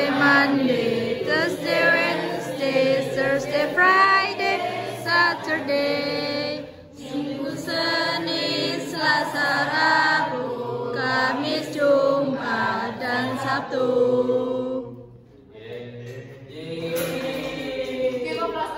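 Several voices singing a song together in long held, melodic lines, with a short break about fifteen seconds in.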